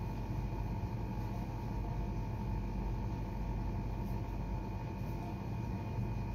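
Steady low rumble and hum with faint steady tones above it, unchanging throughout.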